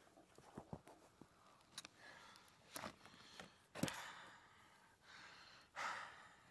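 Quiet close handling sounds: faint rustling and small clicks from objects turned over in the hands, with one sharper click about four seconds in and a couple of soft breath-like swells. A small wood campfire burns close by and may add some of the faint crackles.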